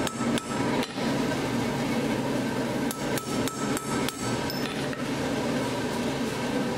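Hand hammer forging red-hot steel on an anvil: a few blows in the first second, a pause, then a quicker run of blows from about three to five seconds in, over a steady background hum.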